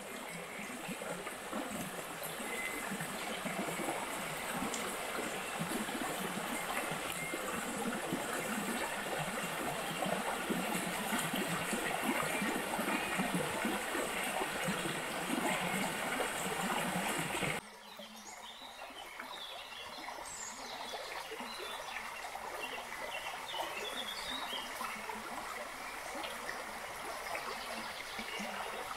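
Small shallow stream babbling over stones. About two-thirds of the way through it cuts abruptly to a quieter trickle, with a few bird chirps over it.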